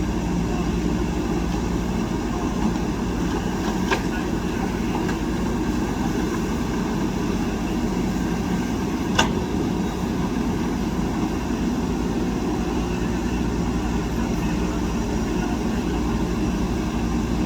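Heavy diesel engine of a backhoe loader running steadily, with two sharp knocks, one about four seconds in and a louder one about nine seconds in.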